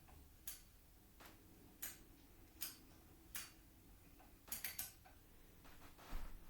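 Small sharp clicks, about one every three-quarters of a second, then a quick run of three near the end.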